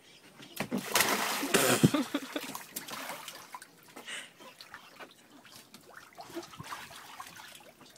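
A small child belly-flops into a shallow plastic kiddie pool with a splash about half a second in, loudest for a second or two, then lighter splashing and dripping as he moves about in the water.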